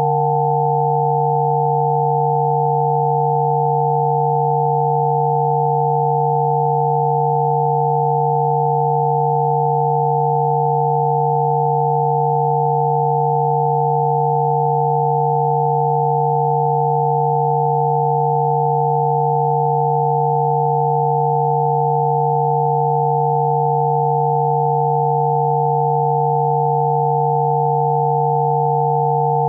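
Electronically generated sine tones from a Rife frequency program: a low steady tone with a few higher pure tones sounding together, unchanging in pitch and loudness.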